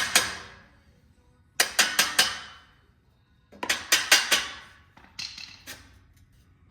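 Hammer striking steel in quick bursts of three to five ringing blows, with short pauses between bursts. He is hammering on the rear wheel of a 1948 Diamond T truck, which is stuck on and binding.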